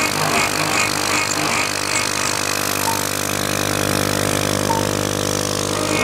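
High-speed router spindle on a 6040 CNC machine running at 35,000 RPM while a TiAlN-coated end mill cuts 5 mm aluminium: a steady whine of several tones under a hiss of coolant spray. A higher pulsing cutting note, about two or three pulses a second, fades out about halfway through.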